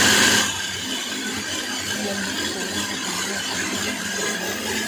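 Anex electric chopper's motor running steadily, whirring as it chops and mixes beef mince for seekh kabab. The sound drops in level about half a second in, then holds even.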